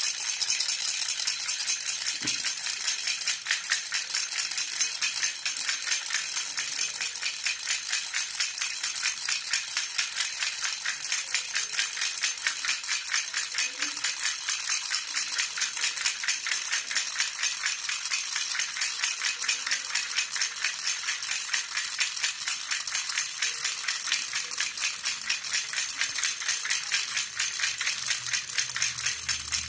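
Baby rattle (jhunjhuna) shaken steadily and quickly, a continuous dense jingling of fine clicks.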